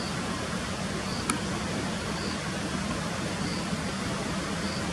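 Steady outdoor background noise with a low hum, a faint high chirp repeating a little more than once a second, and a single sharp click about a second and a half in.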